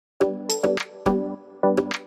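Background music that starts a moment in: held chords punctuated by sharp percussion hits.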